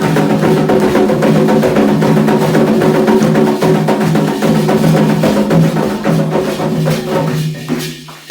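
Candomblé ritual percussion: drums played in a fast, dense rhythm with a sharp clicking strike pattern over a steady pitched drone, briefly breaking off near the end.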